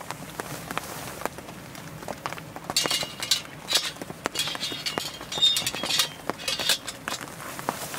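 Clothing and glove rustling as a hand reaches for and grips a Coleman Northstar gas lantern, with a couple of light metallic clinks from the lantern's wire handle. Small scattered taps sound throughout.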